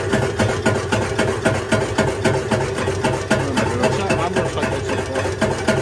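Homemade Stirling engine running, with an even knocking about six or seven times a second over a steady hum.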